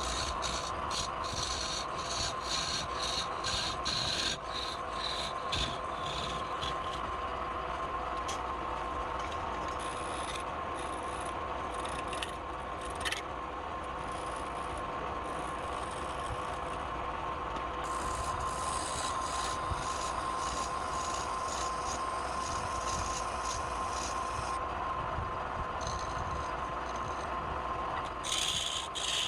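Wood lathe running with a steady motor whine while a tool or abrasive rubs and scrapes against the spinning wood in a long series of short strokes.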